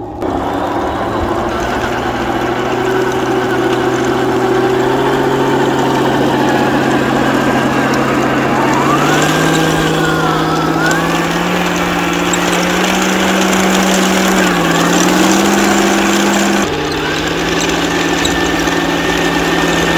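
Heng Long 1/16 Tiger 1 RC tank driving over gravel: its plastic tracks clatter over the ground under the steady drone of the tank's built-in simulated engine sound, which steps up in pitch about nine seconds in.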